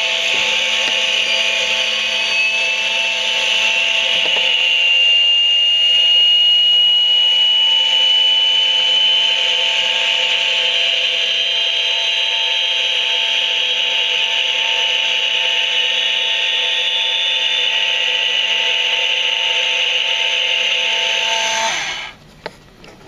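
Haynes 'Build Your Own Jet Engine' model running: its small electric motor whirs loudly as it spins the plastic fan and compressor stages, over the model's jet sound, a high whine that rises in pitch over the first few seconds and then holds steady. Everything cuts off suddenly near the end as the model's timer switches it off.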